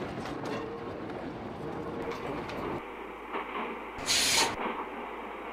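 Steam tram running with a steady rumble, and a short, loud hiss of escaping steam about four seconds in.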